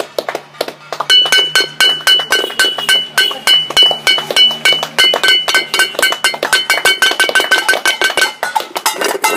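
Hands clapping while a metal pan is struck rapidly over and over. From about a second in, the pan rings at one steady pitch under the strikes, fading near the end.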